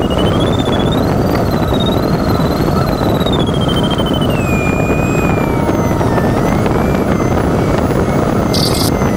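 Steady, loud rush of airflow in the cockpit of an LS4B glider in flight, with the audio variometer's continuous electronic tone wavering up to its highest pitch about a second in, then sliding steadily lower; the vario's pitch tracks the climb rate, so the lift is fading.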